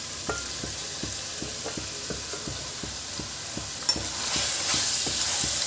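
Onion-spice masala and potatoes sizzling in oil in a kadhai, with many small crackles. A sharp click comes about four seconds in, and the sizzle grows louder as a wooden spatula starts stirring.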